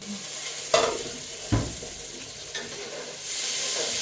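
Food sizzling in a frying pan, with two sharp knocks of a utensil against the pan; the sizzle grows louder about three seconds in.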